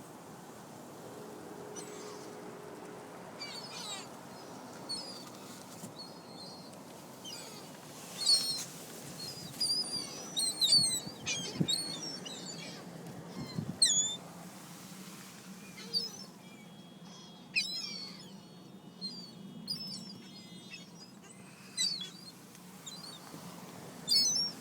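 Gulls calling: short, high squeals and yelps with quick pitch sweeps, scattered and coming in clusters through the second half, over a low steady hum.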